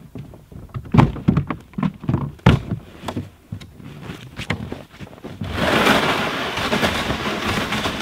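Knocks and thunks from a plastic tote and pull-sled being handled and packed. About five seconds in, a steady scraping hiss starts as the plastic sled is dragged over the firm, frozen snow of the trail.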